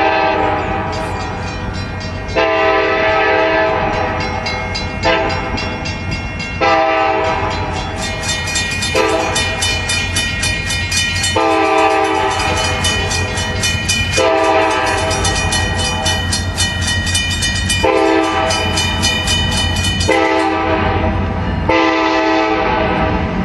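Nathan K5LLA five-chime locomotive air horn sounding a long series of drawn-out blasts with short breaks, over the steady low rumble of an approaching freight train.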